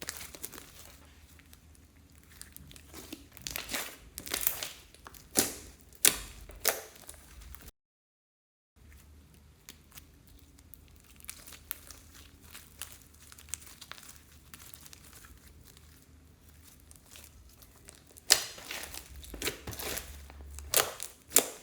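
Clear slime being pressed and stretched by hand, crackling with scattered sharp pops and clicks. The sound cuts out completely for about a second partway through, and the pops come thicker and louder near the end.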